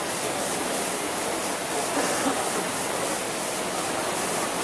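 Steady, dense rushing noise of an indoor rowing race hall: many Concept2 air-flywheel rowing machines spinning under hard strokes, mixed with the din of the crowd.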